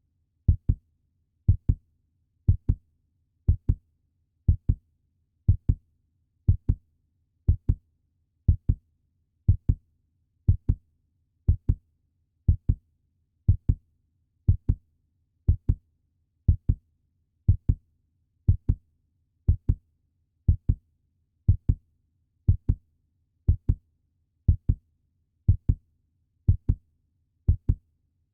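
Puppy heartbeat sound effect: steady lub-dub double thumps, about one pair a second, with silence between the beats.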